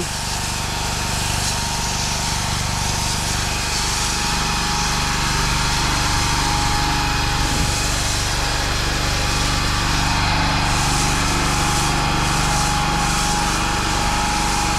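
Petrol pressure washer engine running steadily, with the even hiss of the water jet rinsing block paving. The tank is close to empty after about two hours of running.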